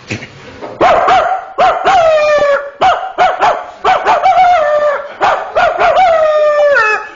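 A person imitating a dog barking: a long run of quick barks with a few short pauses between them, the last one drawn out and falling in pitch.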